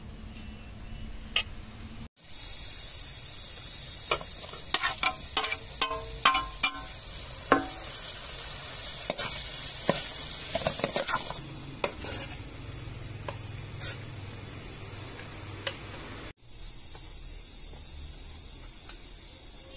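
Chopped tomatoes frying in hot oil in a metal pan, sizzling steadily, while a metal spoon stirs them with repeated clicks and scrapes against the pan. The sizzle starts suddenly about two seconds in, is loudest around the middle, and is quieter in the last few seconds.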